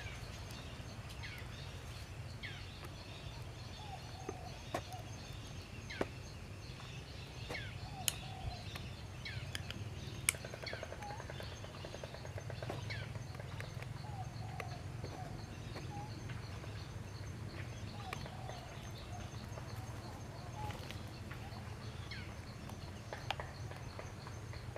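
Outdoor ambience: scattered short bird chirps and a few sharp clicks over a steady low rumble.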